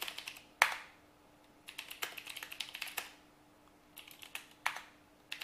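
Typing on a computer keyboard: short bursts of keystrokes with pauses between them, and one louder single keystroke about half a second in. A faint steady hum sits underneath.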